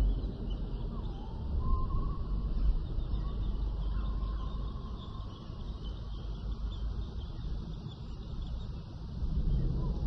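Layered prehistoric-jungle ambience: a steady low rumble under faint high bird-like chirps, with a thin drawn-out call gliding about two seconds in.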